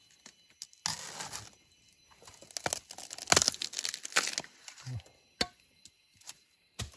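Plant leaves and stems being pulled and torn by hand. A burst of rustling comes about a second in, then a longer spell of tearing and crackling with sharp snaps, and a few lone cracks later on.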